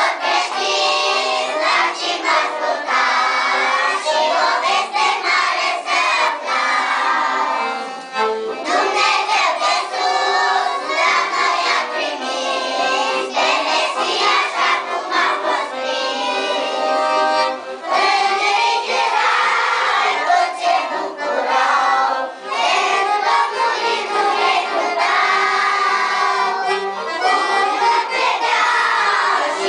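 A group of young children singing together over a steady instrumental accompaniment.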